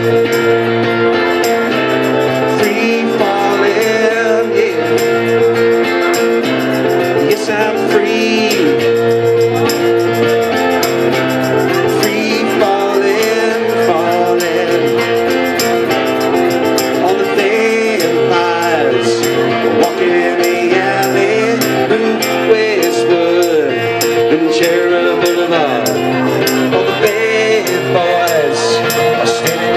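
Live duo playing: electric guitar with hand percussion, a tambourine shaken and struck to a steady beat over congas.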